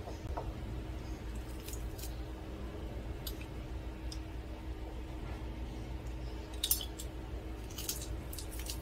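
Metal garlic press being squeezed and worked over a glass bowl: a few scattered sharp metallic clicks and clinks, the loudest about six and a half seconds in, over a steady low background hum.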